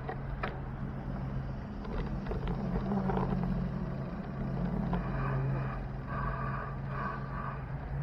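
City street traffic from a bicycle: nearby car engines running with a steady low hum over road noise, with a few short clicks.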